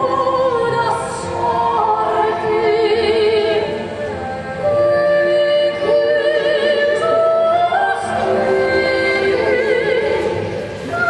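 Music: operatic singing, long held notes with wide vibrato over an accompaniment, the melody stepping to a new pitch every second or two.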